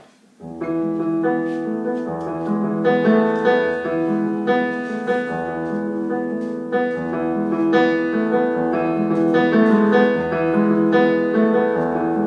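Digital stage piano playing the instrumental introduction to a song: sustained, repeating chords over a recurring bass note, beginning about half a second in.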